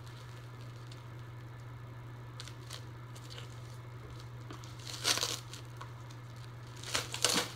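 Clear plastic shrink-wrap being torn and crinkled off a hardcover book, in two short bursts: one about five seconds in and one near the end. A steady low hum runs underneath.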